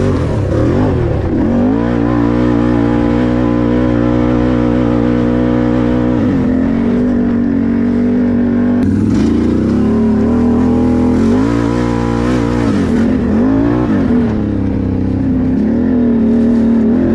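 Can-Am 1000 ATV's V-twin engine under throttle, held at steady revs with its pitch dropping and climbing back up three times as the rider eases off and gets back on the gas.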